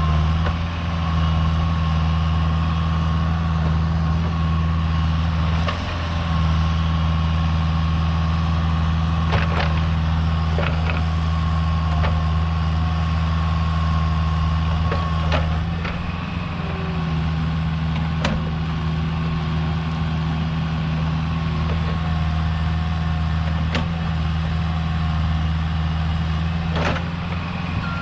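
Diesel engine of Caterpillar heavy equipment running steadily under work, with a handful of sharp knocks scattered through. The engine note shifts slightly about halfway through.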